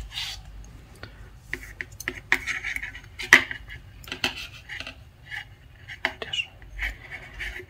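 Metal double-pointed knitting needles clicking and scraping against each other at an uneven pace as stitches are knitted in the round, with one sharper click about three seconds in.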